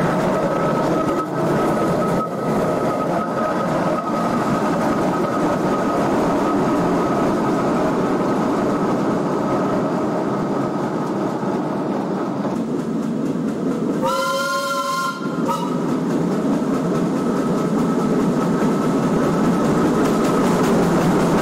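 Ransomes, Sims & Jefferies steam traction engine running, a continuous noisy mechanical rumble with a faint steady high tone. About fourteen seconds in, its steam whistle blows once for about a second and a half.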